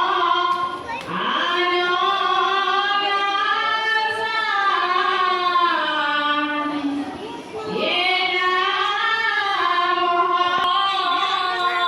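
Voices singing a slow Assamese devotional hymn (naam) in long held, gently gliding phrases, breaking briefly for breath about a second in and again about seven and a half seconds in.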